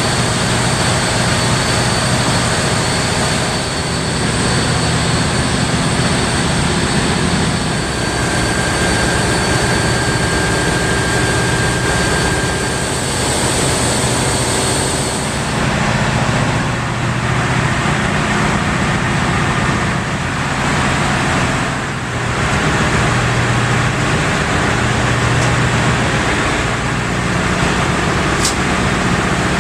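Large gas-engine-driven compressor units running steadily: a loud, even machinery drone, with a thin high whine through the first half.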